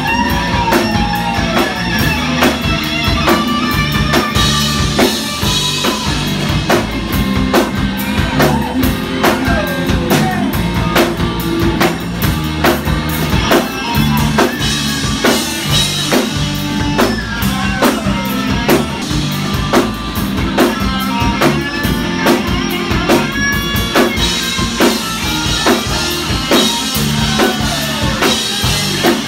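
Live rock band playing: electric guitars over a drum kit, with a lead guitar line full of string bends and a steady drum beat.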